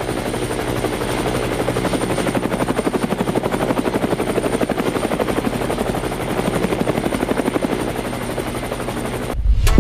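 Multirotor drone buzzing steadily in flight, with a rapid fluttering rotor chop and a thin high motor whine. It cuts off near the end into a heavy low thump.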